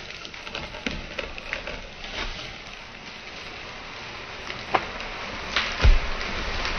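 A felled tree sliding down through the neighbouring branches, with twigs and leaves crackling and snapping, a few sharper cracks, then a heavy thud as the trunk hits the ground about six seconds in.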